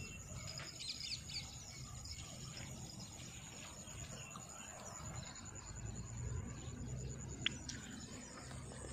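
Birds chirping over a steady, high insect drone, with one sharp tick about seven and a half seconds in.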